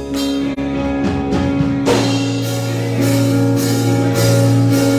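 Live worship music from a church band: sustained chords with drum beats that come in more strongly about two seconds in.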